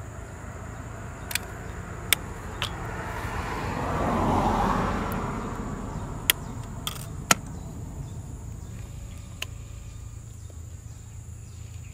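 A road vehicle passing, its noise swelling and fading over a few seconds around the middle. Several sharp clicks come from the fibre splicing tools being handled.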